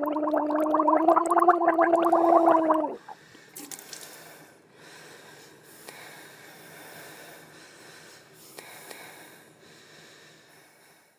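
A bubbling gargle with a held, slightly rising voiced tone for about three seconds, then stopping abruptly. After it, a faint hiss with scattered small clicks.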